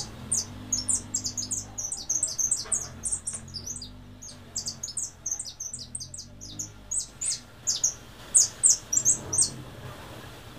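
Caged jilguero finch singing a fast, twittering song of quick high chirps that stops about a second before the end. A low hum runs underneath for the first several seconds.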